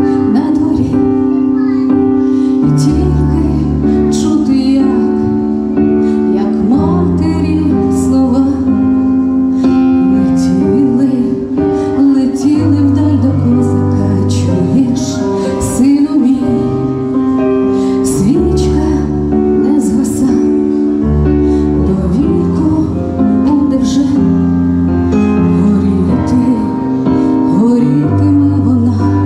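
A woman singing a Ukrainian song into a microphone over an instrumental accompaniment with held bass notes, amplified through a PA speaker.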